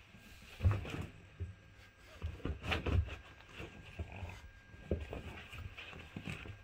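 French bulldog grunting and snuffling in irregular short bursts while he noses after his ball, his soft fabric cone scuffing and bumping on the carpet. The loudest bursts come about half a second in and around three seconds in.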